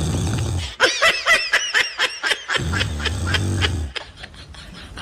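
A man snoring loudly: a low rattling snore, then a run of quick high-pitched chirps, then a second long rattling snore.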